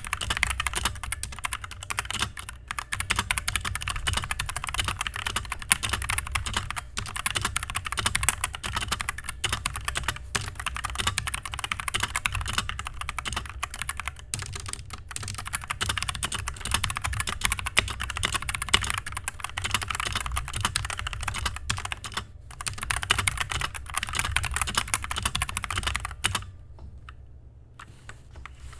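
Fast, continuous typing on an RK71 mechanical keyboard with unlubed Otemu Brown tactile switches, unlubed stabilizers and sound-dampening foam. The typing stops about two and a half seconds before the end.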